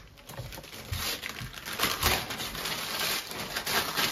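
Gift-wrapping paper crinkling and rustling in quick, irregular crackles as a present is handled and unwrapped.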